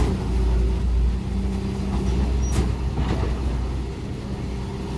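Street traffic: cars driving past close by, the loudest pass about a second in, over a steady engine hum. A few sharp clanks come in the middle.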